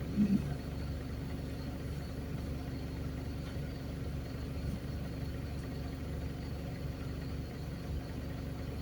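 Mercedes-Benz OF-1721 bus's diesel engine running steadily while under way, a low, even drone with a steady hum. A short low bump sounds just after the start.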